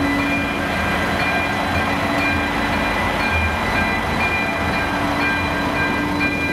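ČD Cargo class 744 diesel shunting locomotive rumbling slowly past at close range. Over it the level crossing's electronic warning bell rings in a steady pattern, about once a second.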